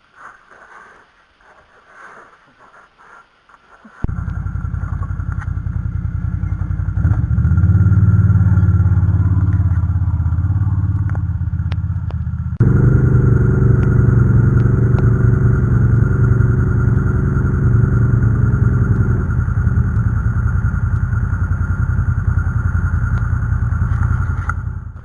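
Bombardier Outlander ATV engine running hard and loud, starting abruptly about four seconds in. Its pitch rises, then jumps to a higher steady drone about halfway through and holds there until it cuts off near the end.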